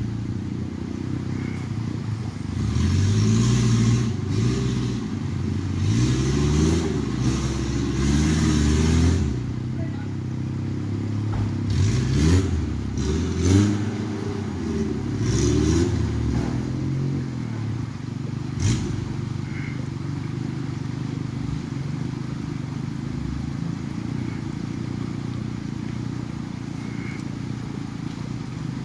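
Suzuki Jimny off-roader's engine revving up and down again and again as it works through deep mud, with a few sharp knocks along the way. After about two-thirds of the way through it settles to steadier running at lower revs.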